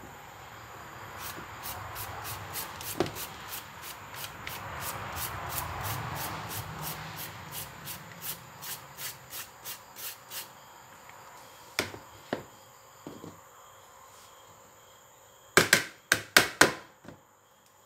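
Firm green mango being shredded with a hand-held shredding peeler: quick scraping strokes about three a second, with a soft rustle of the shreds. Near the end there are a few sharp knocks, the loudest sounds here.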